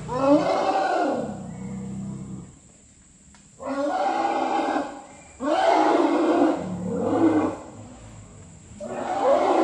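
Bornean pygmy elephants calling: about four loud calls, each one to two seconds long, whose pitch slides up and down, with short pauses between them.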